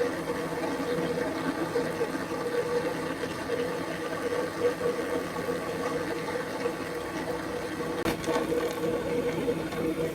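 Metal lathe running steadily with a constant hum, not cutting; a single click about eight seconds in.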